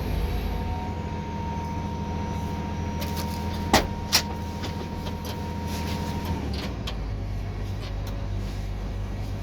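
Cat 323 GC excavator's diesel engine running steadily, with a thin steady whine over it that stops about six seconds in. Two sharp clicks about half a second apart near the middle.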